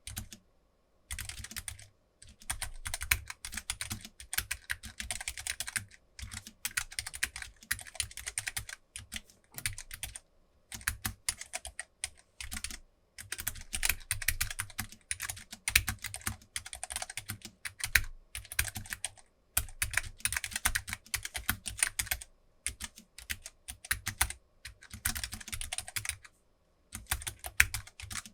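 Fast, heavy-handed typing on a Keychron K3 low-profile mechanical keyboard with linear optical red switches, a dense clatter of keystrokes in bursts broken by brief pauses.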